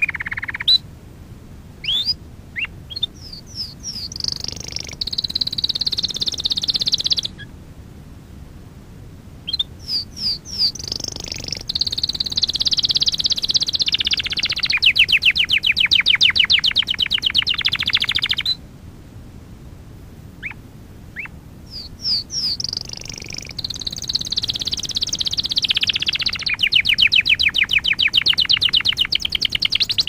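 Domestic canary singing in three long bouts of high, varied phrases and rolling trills, with short pauses about 7 seconds and 19 seconds in. The second and third bouts each run into a long, fast trill of rapidly repeated notes. This is canary song recorded as a tutor song for training young canaries.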